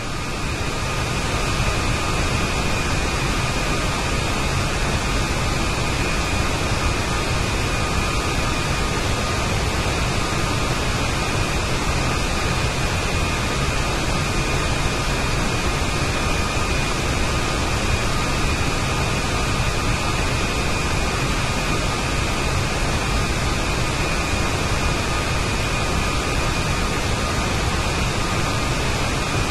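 CFM LEAP turbofan engine at cruise: a steady rushing noise with a thin, steady high whine and a fainter tone below it, fading up over the first second.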